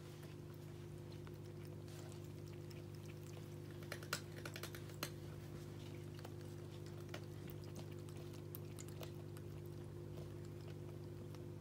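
Electric pet water fountain's pump humming steadily. A cat laps water from it, a quick run of small clicks about four to five seconds in.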